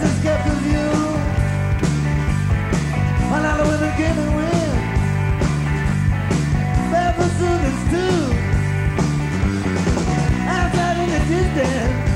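Soundboard recording of a live rock band, with electric lead guitar soloing over drums and bass: bent, sliding notes with vibrato over a steady beat.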